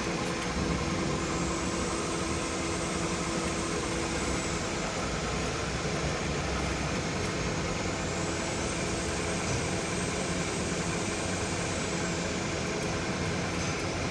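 Cage mill (cage crusher) running empty in a no-load test, its two rotors turning in opposite directions: a steady, even rushing noise with a faint steady hum. Most of the noise comes from the air churned between the counter-rotating rotors.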